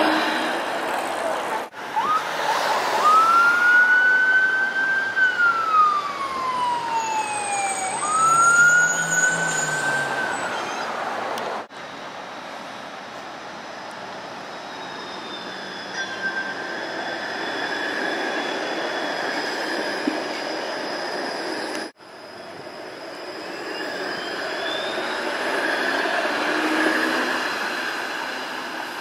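Street noise of modern low-floor streetcars running along city tracks, heard in several separate takes cut together. In the first take a loud high tone rises quickly, holds, then slides slowly down, twice over about nine seconds. The later takes hold steadier running noise.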